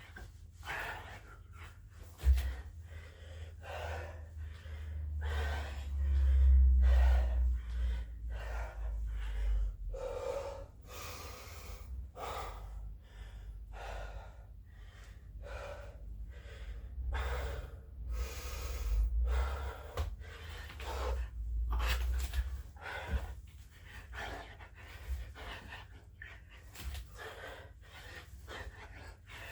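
A man breathing hard and fast during a set of burpees, gasping about once a second. A sharp knock comes about two seconds in, and a deep rumble sits under the breathing for stretches.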